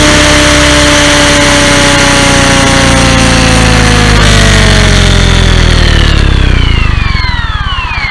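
SAB Goblin 500 electric RC helicopter's motor and rotor winding down. The whine falls slowly in pitch, then drops faster and fades near the end as the rotor spools down.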